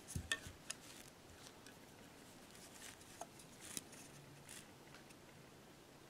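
Faint clicks, taps and rubbing from two unpowered 80 mm plastic computer fans, the stock Icom IC-7300 fan and a Noctua NF-A8, as they are handled and turned over. A cluster of small taps comes in the first second, and a few more about three to four seconds in.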